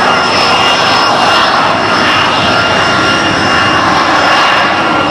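Aircraft engine running loud and steady, with a few thin, steady high-pitched tones over the engine noise.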